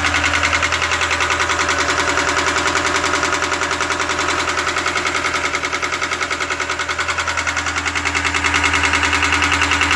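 GAZelle Business's four-cylinder 2.7 Evotech petrol engine idling with a fast, even, hard knock from under the valve cover. The knock began as a click and now beats steadily, a fault in a new engine at only about 750 km.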